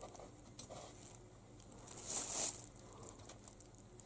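Kitten pawing and scratching at cardboard: light scrapes and taps, with one louder rustling scrape about two seconds in.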